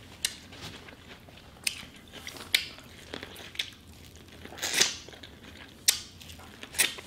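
Bites into boiled corn on the cob with chewing: a string of sharp, wet crunches about a second apart as the kernels are bitten off the cob.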